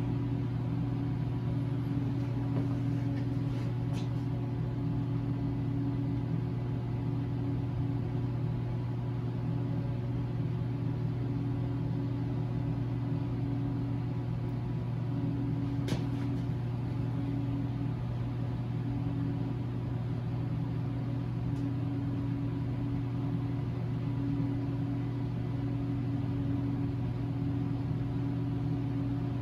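A steady, unchanging low mechanical hum, with a few faint clicks.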